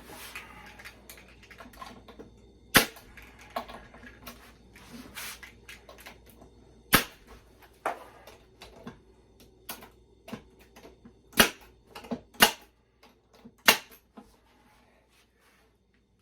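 Staple gun driving staples into plywood: about five sharp shots a few seconds apart, with lighter knocks of the box being handled between them.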